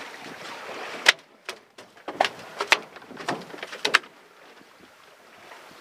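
A large fish being moved across an aluminium boat's checker-plate deck, giving a run of irregular sharp knocks and slaps for about three seconds before it settles.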